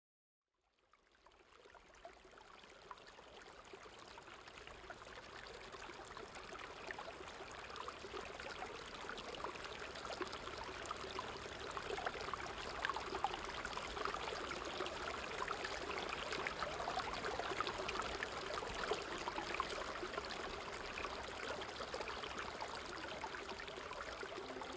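Flowing river water, a steady rush with fine splashing, fading in from silence about a second in and growing louder over the first ten seconds or so.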